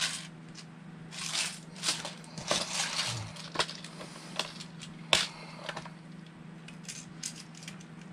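Hands sorting through small screws and hardware: irregular clicks, rattles and rustling, with the sharpest click about five seconds in.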